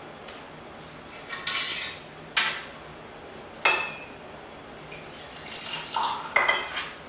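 Sharp clinks and knocks as a small metal flask and a ceramic mug are handled on a tabletop, then about two seconds of splashy liquid pouring into the mug.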